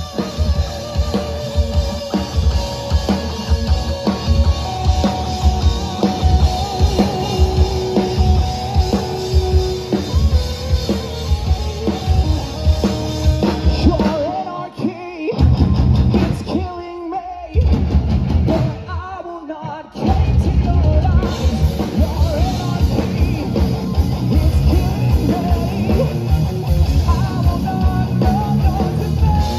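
Live rock band playing electric guitars over a full drum kit. Around the middle, the drums and low end cut out twice for a second or two, then the full band comes back in.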